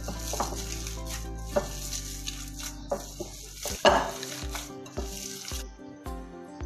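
Hands squishing and kneading wet raw beef mince in a glass bowl, a crackly squelching noise that stops shortly before the end, over background music. A steady drum beat of about two per second comes in about halfway through.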